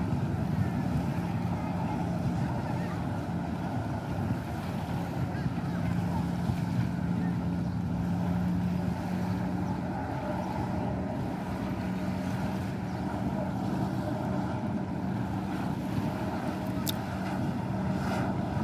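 Jet ski engine running steadily, pumping water up the hose to a flyboard, with wind and water noise around it. A brief sharp tick near the end.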